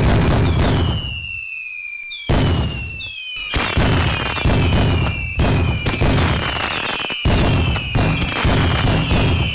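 Fireworks going off in a series of sharp bangs, about one a second and coming closer together in the second half, each bang followed by a whistle falling in pitch.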